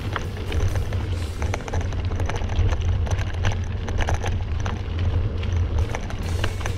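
Bicycle rolling fast over a gravel forest trail, the tyres and frame giving frequent small clicks and rattles over a steady low rumble of wind buffeting the camera microphone.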